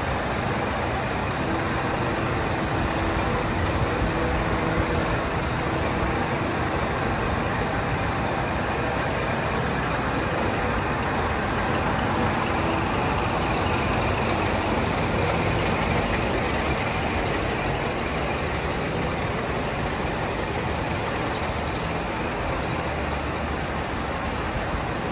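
Scania R480 truck's diesel engine idling, a steady running sound with no change in pitch.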